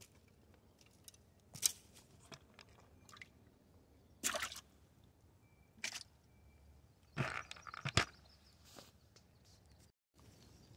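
Several short wet splashes and squelching handling noises as a caught crappie is put into a bucket of water holding other crappie.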